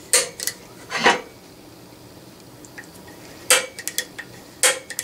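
Automatic center punch firing into a metal part: four sharp metallic snaps, two near the start and two near the end, each with a brief ring.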